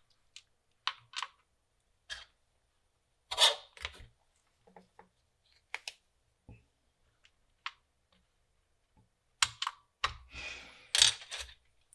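Sparse plastic clicks and taps from an Amiga 500 keyboard's keys and parts being handled, one louder about three and a half seconds in and a busier run of clicks near the end.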